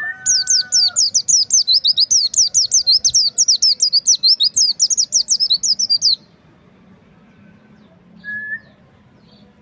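White-eye (pleci) singing: a fast, high twittering run of sharp down-slurred notes, about seven or eight a second, lasting about six seconds and then stopping. The tail of a rooster's crow fades out at the start.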